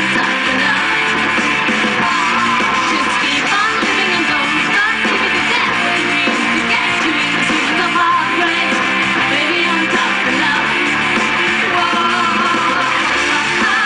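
Live rock band playing: a female vocalist singing into a microphone over electric guitars.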